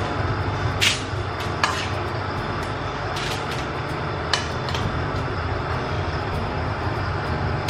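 A steady low hum of kitchen room noise, with a few short crinkles and clicks from aluminium foil and a spoon as a milkfish is stuffed by hand.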